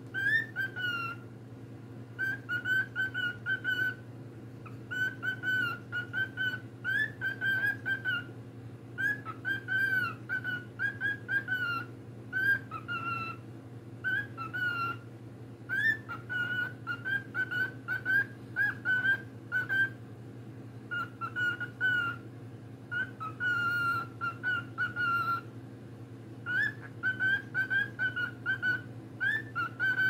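Cockatiel whistling its song in short warbling phrases, one after another with brief pauses between, over a steady low hum.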